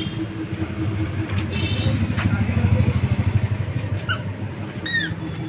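A small motor vehicle's engine running close by on the street, growing louder toward the middle and easing off, with a couple of brief high squeaks near the end.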